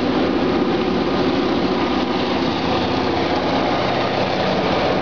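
EMD GP38 diesel-electric freight locomotives passing close by, their engines running steadily under power along with the rumble of the wheels on the rails.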